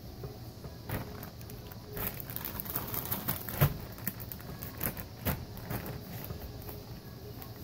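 Plastic zip-top bag rustling and crinkling as it is handled and its seal pulled open: a run of crinkles and sharp clicks, thickest a little before the middle, over a low steady hum.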